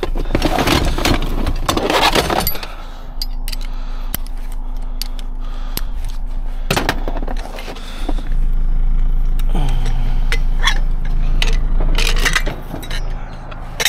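A car jack and tire tools being put away: a series of metal clinks, knocks and scrapes, over a steady low hum.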